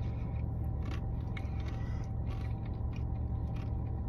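Biting and chewing into a Dairy Queen cookies and cream crunch-dipped cone, a few short crisp crunches over a steady low hum.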